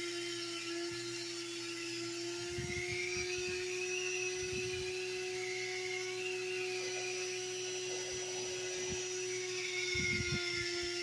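Small rotary tool running steadily with a green abrasive bristle brush spinning against an opal, sanding and shaping the stone. A steady motor hum with a higher whine, and a wavering scratchy band as the bristles work the stone.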